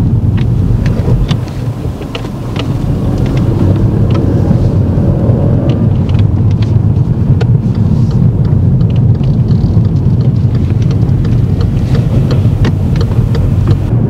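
Car driving, heard from inside the cabin: a steady low rumble of road and engine noise, dipping briefly about two seconds in.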